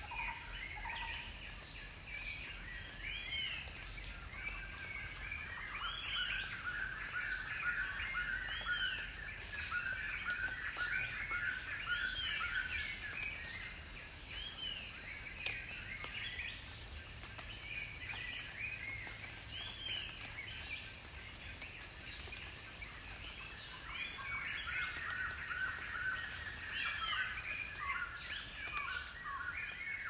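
Wild birds chirping and chattering: many short arched notes, thickening into dense chatter around the middle and again near the end, over a thin steady high tone.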